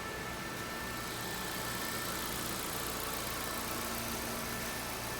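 Nissan Versa Note's 1.6-litre four-cylinder engine idling steadily.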